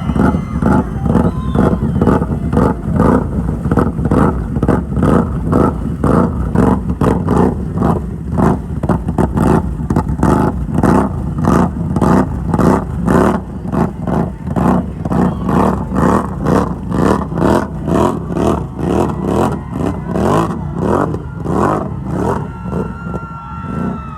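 ATV engine revving hard, surging up and down in quick repeated pulses.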